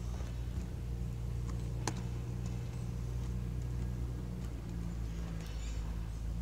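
Steady low mechanical hum running in the background, with a single sharp click about two seconds in.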